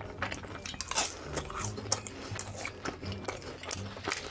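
Close-miked wet chewing of a mouthful of creamy rose tteokbokki, with irregular soft smacks and clicks of the mouth and sauce.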